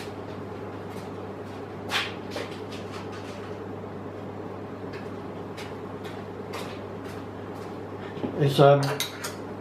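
Air conditioner running in the workshop, a steady low hum. There is a single knock about two seconds in and a brief mutter of a man's voice near the end.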